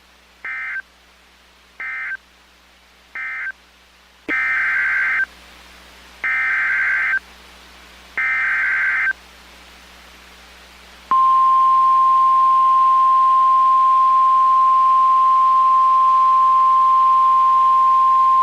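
Weather radio alert signalling: three short screechy data bursts that mark the end of a warning message, then three longer data bursts (the coded header of the next severe thunderstorm warning), followed about eleven seconds in by the steady, single-pitch warning alarm tone.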